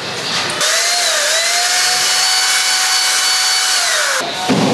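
An electric power tool motor starts about half a second in, runs for about three seconds with a steady high whine over a hiss, then winds down near the end.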